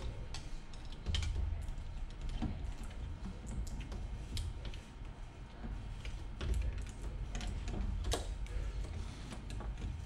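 Scattered light clicks and taps of a circuit board and plastic parts being handled and fitted back into the rear chassis of an LCD TV.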